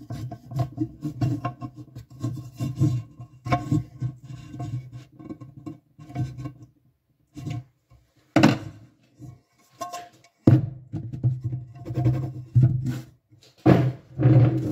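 A metal tool scraping and rasping in quick rhythmic strokes against the frying pan's handle joint for about the first six seconds. After that, music and a few sharp knocks.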